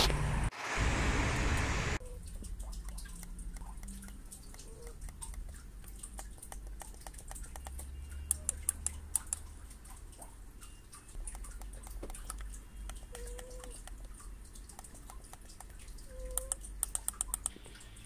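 Kensington SureTrack wireless mouse buttons being clicked: a series of small plastic clicks, with quick runs of louder clicks about eight seconds in and again near the end. The first two seconds hold a steady rushing noise.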